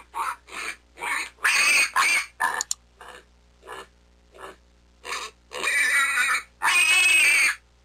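Warthog grunting: a run of short grunts with longer, louder calls in the middle and near the end.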